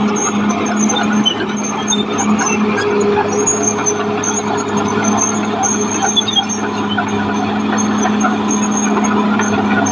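Caterpillar D6R XL crawler bulldozer running steadily: a diesel engine hum under a dense mechanical clatter, with a thin high squeal that comes and goes throughout.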